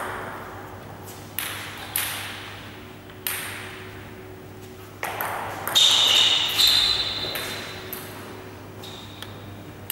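Table tennis ball being struck and bouncing, a handful of sharp clicks off the paddles and table that echo in a large hall, with a brief high squeak about six seconds in. A steady low hum lies underneath.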